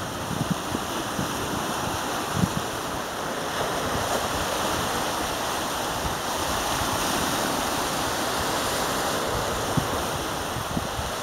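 Sea waves washing and breaking on a rocky shore, a steady hiss of surf. A couple of brief low bumps of wind on the microphone.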